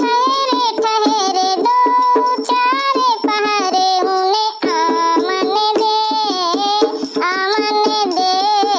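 A high-pitched female voice sings a sohar-style Indian folk song, holding long wavering notes as the melody moves up and down.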